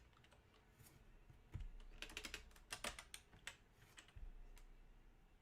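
Faint typing on a computer keyboard: a quick run of key clicks, with a dull knock before and after.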